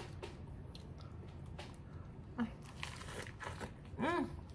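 Bite into a lettuce-wrapped burger: crisp lettuce crackling and crunching between the hands and teeth, with a short hummed "mm" near the end.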